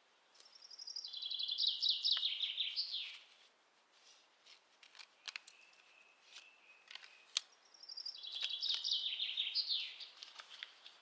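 A songbird singing two phrases of rapid high notes that step down in pitch, several seconds apart, with a few sharp chirps and clicks between them.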